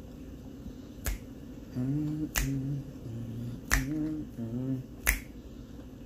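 Four finger snaps, evenly spaced a little over a second apart, with a person humming a few notes in time with them between the second and fourth snaps.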